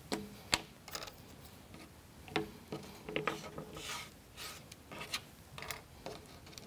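Light clicks and taps of small plywood kit parts and hand tools being set down and moved about on a cutting mat, with a few short brushing or sliding scrapes between them.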